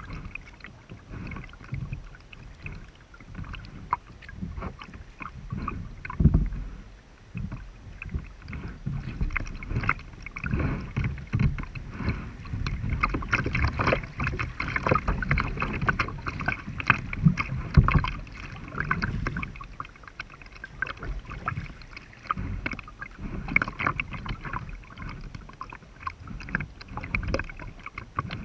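River water rushing and splashing against a kayak's hull as it runs through a riffle. The splashing is irregular, at its loudest in the middle, then eases off.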